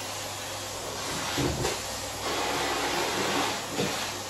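Vacuum cleaner running with a steady suction hiss as its wand works along a high shelf. The suction noise swells in the middle, and there are two dull knocks, about a second and a half in and near the end.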